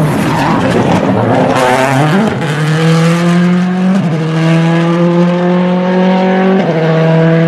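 Race car passing close with a rush of engine and tyre noise, then accelerating hard away up the road. Its engine note climbs steadily, broken by two gear changes about four and six and a half seconds in.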